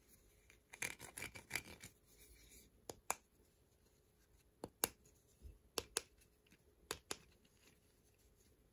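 Small plastic toy pieces being handled: a short spell of rustling and scraping about a second in, then sharp little clicks, mostly in pairs, every second or so.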